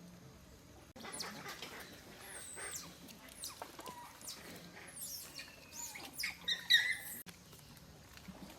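A run of high, thin squeaks and chirps, many falling steeply in pitch, from small animals. The calls start suddenly about a second in and cut off just after seven seconds, busiest and loudest near the end.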